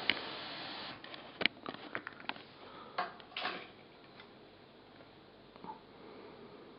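Bang & Olufsen TV and speaker system switching off: the steady background hiss cuts out about a second in, followed by a scatter of sharp clicks and a short puff of noise as the units power down.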